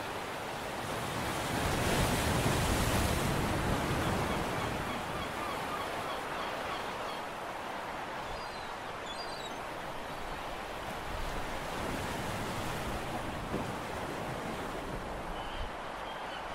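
Steady wash of wind and harbour water with no clear engine note, swelling louder for a couple of seconds about two seconds in. Faint high chirps come through near the middle and again near the end.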